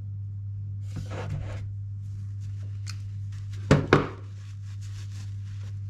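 Hand work on a plastic RC buggy's parts and small tools at a workbench. A short scratchy rustle comes about a second in, two sharp knocks a little past halfway are the loudest sounds, and light clicks follow, all over a steady low hum.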